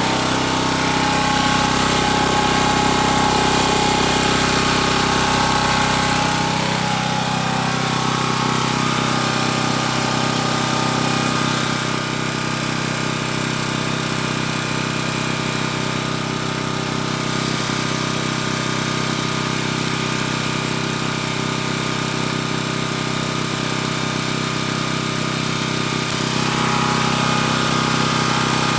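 Champion portable generator's engine running steadily at its governed speed. About seven seconds in its lowest hum drops away and the note thins, then fills out again near the end.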